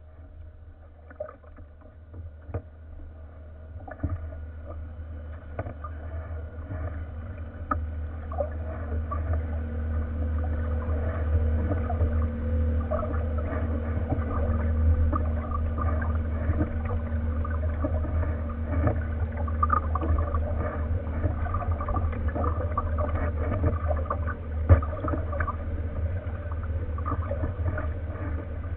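Water gurgling and splashing against the bow of a kayak being paddled along a river, over a low rumble. The sound grows louder over the first ten seconds or so, then holds steady.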